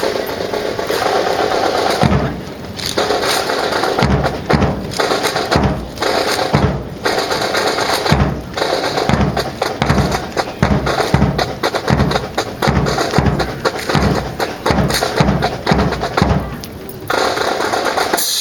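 Marching drum corps playing a fast, rhythmic drum cadence of sharp stick strikes over regular low drum beats, stopping abruptly near the end.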